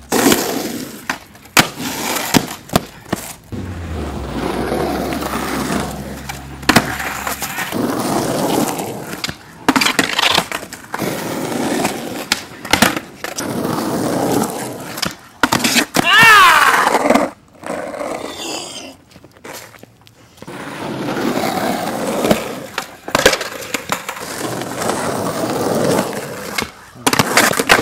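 Skateboard wheels rolling over rough concrete and asphalt, broken many times by sharp clacks and slaps of the board against the ground as tricks are tried.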